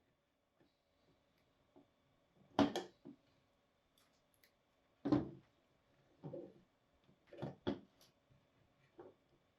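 Wire cutters snipping off excess hookup wire: several sharp snips with quiet pauses between them.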